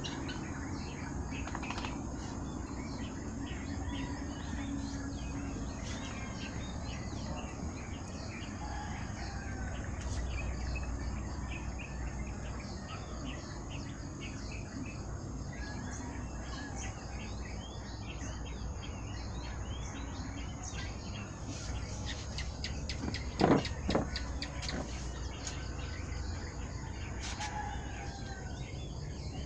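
Background ambience of small birds chirping and insects trilling, steady throughout, with one brief louder sound about three-quarters of the way through.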